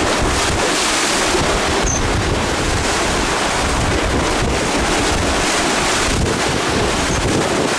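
Seawater rushing and splashing along the hull of a Leopard 48 sailing catamaran as it sails fast through rough seas, with strong wind buffeting the microphone. The noise is loud and steady throughout.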